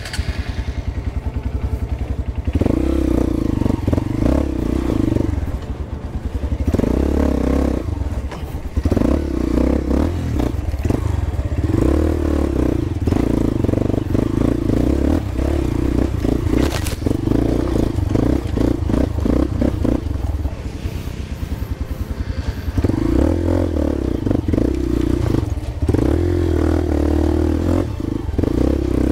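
Off-road dirt bike engine running at low speed, the throttle opening and easing in spells of a few seconds. There are rattles and scrapes as the bike rolls over rough ground, and one sharp crack about seventeen seconds in.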